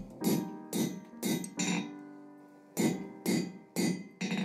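Hand hammer striking a steel bar held across red-hot steel on an anvil to neck it in: a run of blows about two a second, with a short pause midway, over guitar background music.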